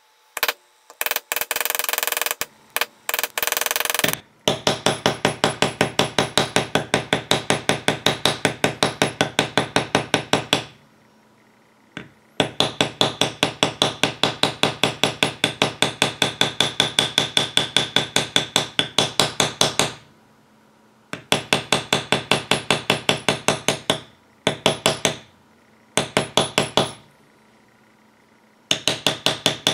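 Rapid, even tapping of a mallet on a metal leather stamping tool as it is walked along the outline of a carved design in leather. The strikes come about five a second in runs of several seconds, with short pauses between runs.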